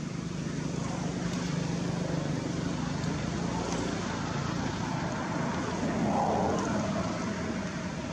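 Steady background rumble of motor traffic with a low hum, growing louder about six seconds in.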